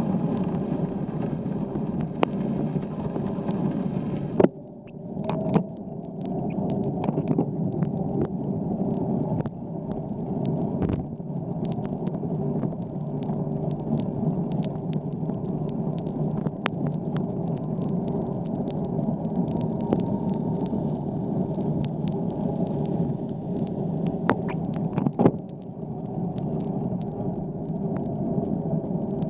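Steady, muffled rumble of a bicycle riding on wet pavement, picked up by a camera mounted on the bike, with occasional sharp knocks and rattles over bumps. The rumble drops away briefly after a knock about four seconds in and again near the end.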